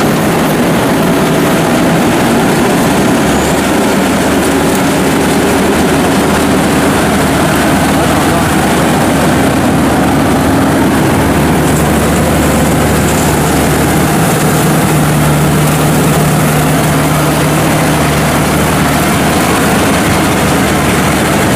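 Home-built Vietnamese rice combine harvester on crawler tracks running under load while harvesting: a loud, steady drone of engine and threshing machinery with no pauses.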